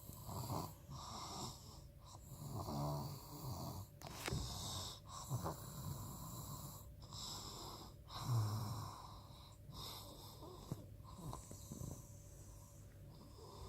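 Snoring in sleep, breath after breath with short pauses between, not really loud; the low rattling snore is loudest about eight seconds in.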